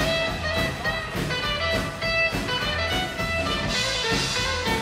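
Rockabilly band playing live without vocals: guitars over upright double bass and drum kit, with a steady beat.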